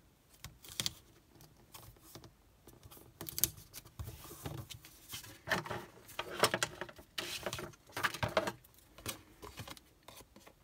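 Paper and card stock being handled: irregular rustling, rubbing and small taps as a patterned paper strip is pressed onto a card base and the card is lifted and turned over.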